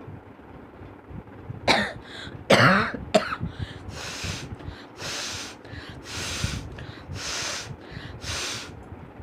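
A person gives three sharp, explosive cough-like bursts close together, then blows their nose hard about six times in a row, each blow a hiss of about half a second.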